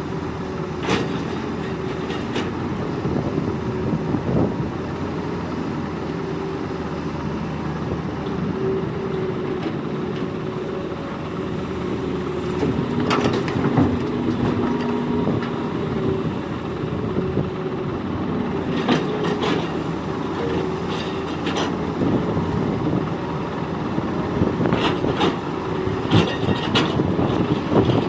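Hitachi hydraulic excavator's diesel engine running steadily under working load while loading soil, with several sharp knocks and clanks scattered through.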